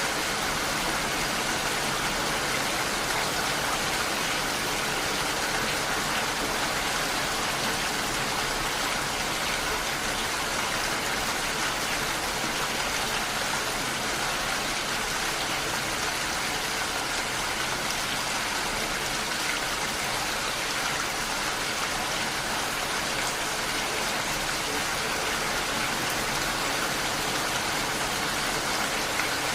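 Heavy rain falling steadily, an even hiss of drops with no breaks.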